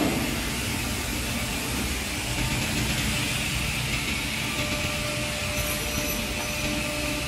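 Woodmaster 4-axis, 16-tool CNC mortise-and-tenon machine running, its spindle motors driving saw blades and router bits through wooden rails in a steady, even noise.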